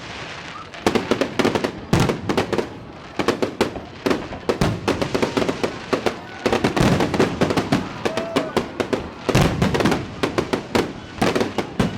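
Fireworks display: dense volleys of sharp bangs and crackling bursts, several a second, with short lulls near the start and about three seconds in.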